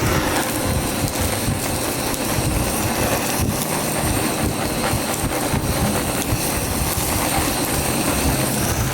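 Heavy summer rain pouring steadily, an even loud wash of noise, with a faint high steady whine held through most of it.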